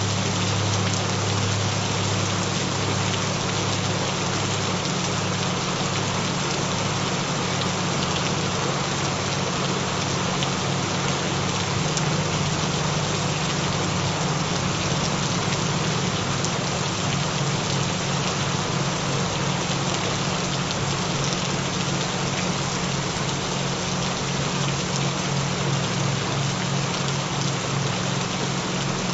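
Steady rain, an even patter of many drops, with low humming tones underneath that flicker in a fast pulse in the second half: rain sounds mixed with binaural tones.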